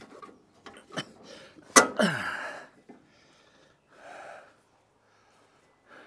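A man's heavy breathing after exertion: a loud sudden outburst of breath about two seconds in, falling in pitch, then breathy panting and a short exhale about four seconds in. A couple of sharp knocks come before the outburst.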